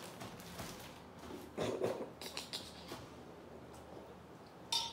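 Plastic packets rustling and crinkling as they are handled, with small clicks. Near the end a metal utensil or dish clinks and rings briefly.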